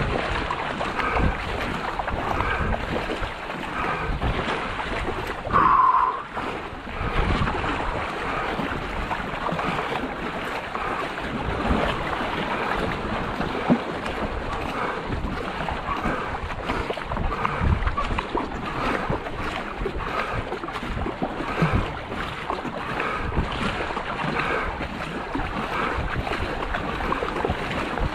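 Paddle strokes dipping and splashing in a steady rhythm as a racing canoe moves through the water, with wind buffeting the microphone. A short, louder sound stands out about six seconds in.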